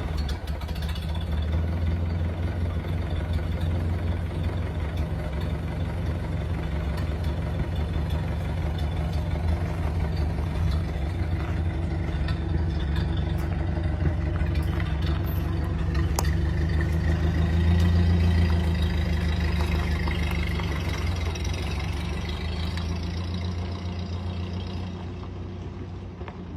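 Old car engine running steadily with a low, even hum, swelling louder about two-thirds of the way through and then fading over the last few seconds.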